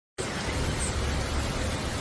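Heavy rain: a steady hiss with a low rumble underneath, which cuts in suddenly just after the start.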